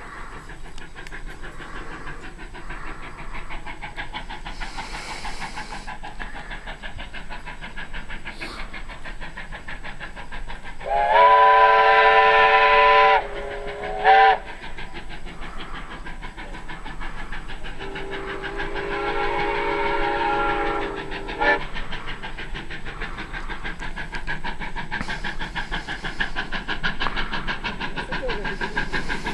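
Two steam locomotives double-heading a passenger train, their exhaust chuffing steadily. About eleven seconds in, a chime whistle sounds a long blast followed by a short toot; a few seconds later a second, lower-pitched whistle sounds one long blast.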